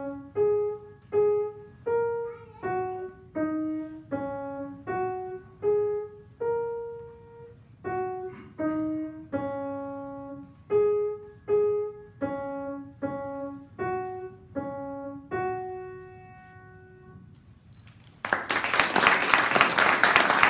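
Grand piano playing a simple melody in separate, evenly spaced notes, often two at a time, the last note dying away about three-quarters of the way through. An audience then breaks into applause near the end.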